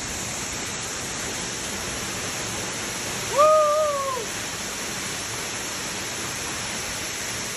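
Waterfall rushing steadily, with one loud whooping shout of about a second, a little over three seconds in, that rises, holds and falls.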